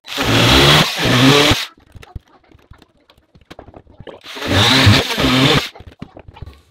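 Cordless drill/driver running in short bursts as it works the screws of a 2x4 stud: two runs of about a second and a half at the start, then again about four seconds in, with small clicks between.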